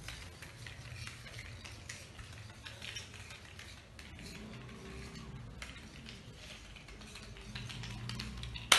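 Pokémon trading cards toppling one against the next as dominoes, a faint run of light ticks from the card edges, with a louder burst of clattering right at the end.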